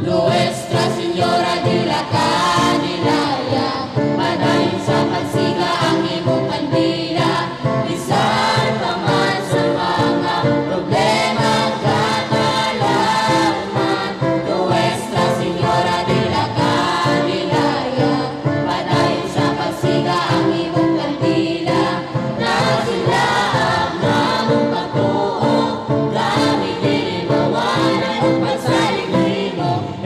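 Hymn music with a choir singing over a steady beat.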